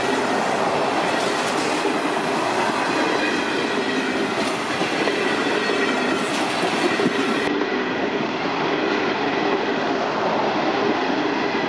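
Indian Pacific passenger train's stainless-steel carriages passing close by: a steady rolling rush of steel wheels on the rails.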